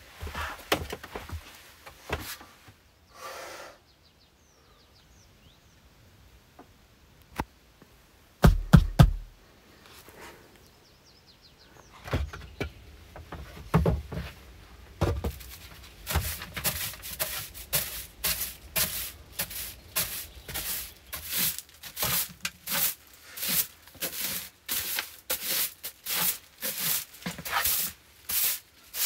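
Straw broom sweeping a wooden plank floor in brisk, even strokes, about one and a half to two a second, through the second half. Before that come a few knocks and a pair of heavy wooden thumps about a third of the way in, the loudest sounds here.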